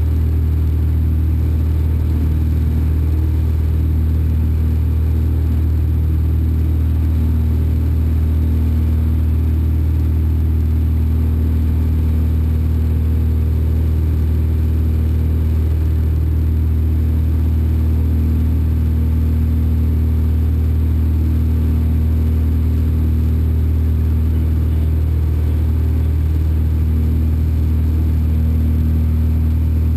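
Cessna 172's piston engine and propeller heard from inside the cabin: a loud, steady low drone at takeoff power through the takeoff roll and climb-out.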